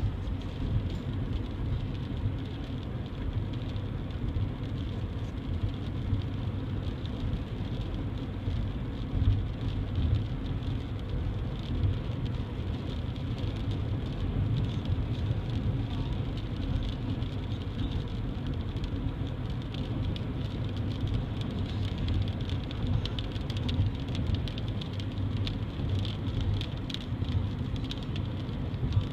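Steady road and engine rumble heard inside a moving car's cabin, with scattered raindrops beginning to tick on the windshield and roof, more often near the end.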